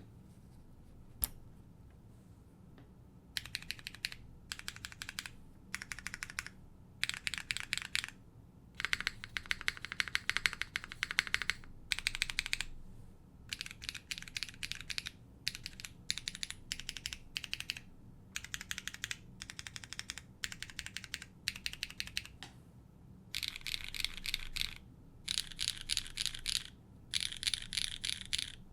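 Neo65 mechanical keyboard with an aluminium plate and HMX Azalea switches being typed on in bursts of rapid keystrokes, each burst a second or two long with short pauses between, and one lone keystroke about a second in.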